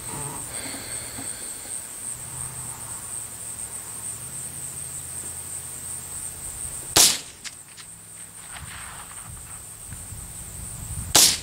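Two shots from a Ruger 10/22 .22LR rifle firing CCI Velocitor rounds, about four seconds apart, each a sharp crack. A steady high-pitched buzz runs underneath.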